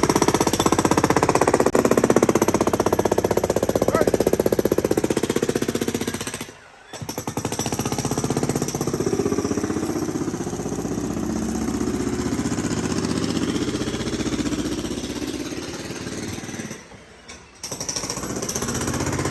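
Jackhammer hammering rapidly as it breaks up concrete, stopping briefly twice.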